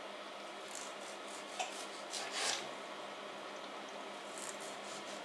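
Kitchen knife slicing a tomato on a wooden cutting board: a few short, faint sawing strokes, the loudest about halfway through.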